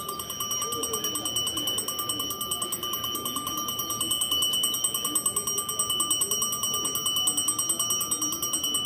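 Railway station train-approach warning bell ringing continuously, a rapid, even ringing that signals a train is about to arrive or pass through.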